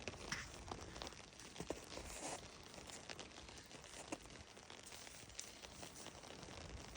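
Faint, irregular crunching and crackling in wet, melting snow.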